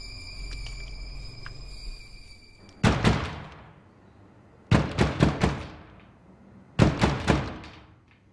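Heavy pounding on a front door: three bursts of loud blows about two seconds apart, the first short, the next two four quick blows each, ringing in the hall. Before the pounding, a steady hum with high held tones.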